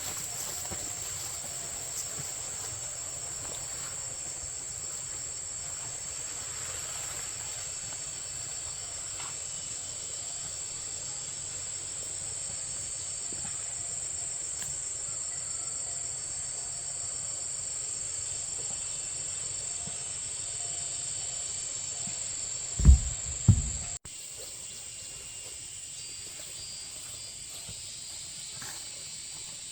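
Steady high-pitched chorus of insects, with two short low thumps about 23 seconds in.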